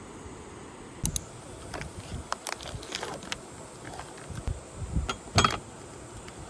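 Irregular clicks, taps and knocks of objects being handled, starting about a second in, with the loudest knock near the end.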